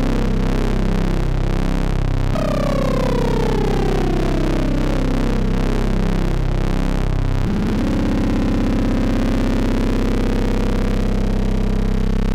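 Eurorack modular synthesizer patch, Rossum Trident oscillators wave-spliced with a rectified sine, sounding a dense buzzy tone with many overtones. Its pitch is turned down in two downward glides through the first seven seconds or so, then holds steady.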